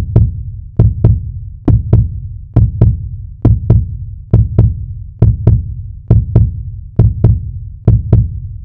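A heartbeat-style sound effect: deep paired thumps, lub-dub, repeating evenly a little faster than once a second.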